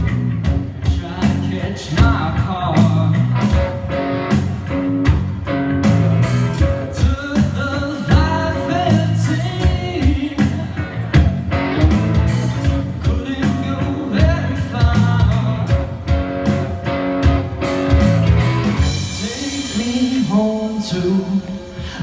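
Live rock band playing at full volume: drum kit keeping a steady beat under electric guitar and bass guitar, with the cymbals swelling briefly near the end.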